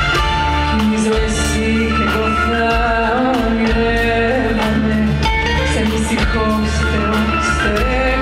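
Live band playing a Greek song: a woman singing over bouzouki and drum kit, with regular drum strokes.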